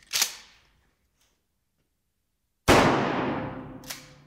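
12-gauge shotgun fired once with a number 4 buckshot load: a sudden, very loud blast about two-thirds of the way in that dies away over a second and a half. A shorter sharp noise comes just after the start, and a brief clack near the end.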